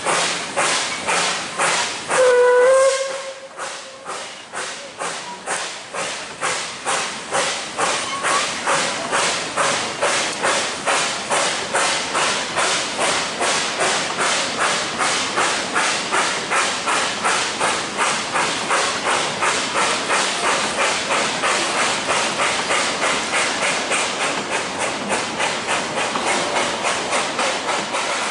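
Puffing Billy narrow-gauge steam locomotive working under steam, its exhaust chuffing in a steady rhythm of about two to three beats a second. A short whistle blast sounds about two seconds in.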